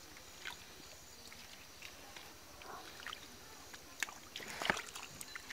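Small splashes and sloshes of shallow, muddy stream water, a few scattered through, with two sharper splashes near the end.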